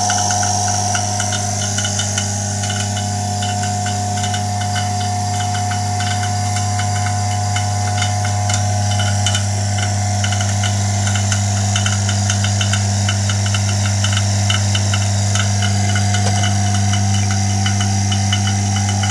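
Homemade Farnsworth-Hirsch-Meeks fusor running at power: a steady, loud electrical hum with a higher buzz, a fast, even crackle and a hiss over it.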